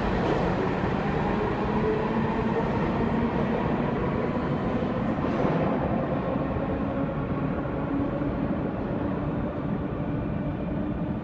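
R46 subway train running between stations: a steady rumble of wheels on rail with faint humming tones from the running gear.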